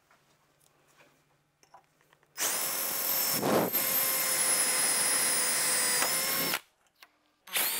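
DeWalt cordless drill running steadily for about four seconds as its bit bores into a metal railing post, then a brief second burst near the end.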